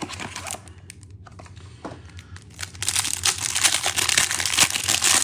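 2021 Panini Prizm Football hanger box being opened and its plastic-wrapped card pack torn open by hand: a few light clicks and rustles, then dense, loud crinkling of the wrapper from about three seconds in.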